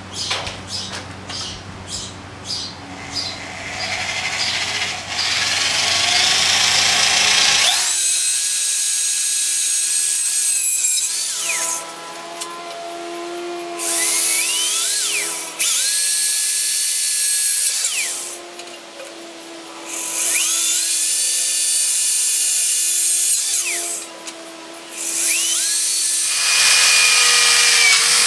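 Electric drill with a sharp 3/16 inch bit boring pilot holes through a metal engine mounting plate. It starts slowly, then runs in several bursts of a few seconds each, the motor whine rising as each one spins up.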